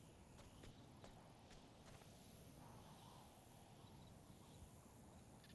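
Near silence: a faint low hiss with a few soft, scattered ticks.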